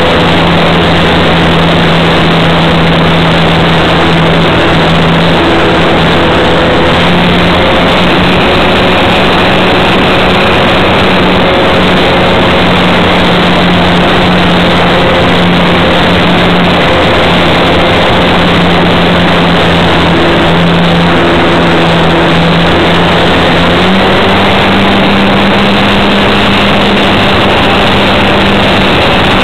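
RC Cessna model plane's motor and propeller running, heard close up through the onboard camera's microphone: a steady hum under a loud, dense rush of noise. The hum wavers slightly in pitch and steps up a little about three quarters of the way through.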